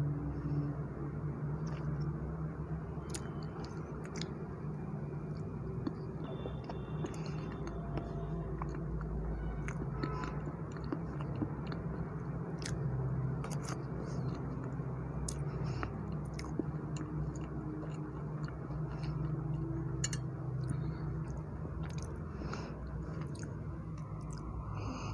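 Close-miked chewing of soft black forest cake with whipped cream, with scattered sharp clicks, over a steady low hum.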